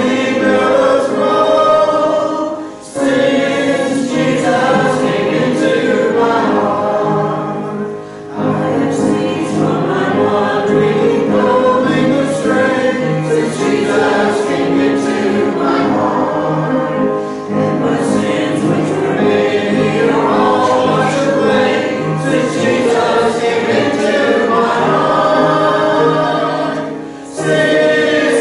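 Many voices singing a hymn together, with short breaks between phrases.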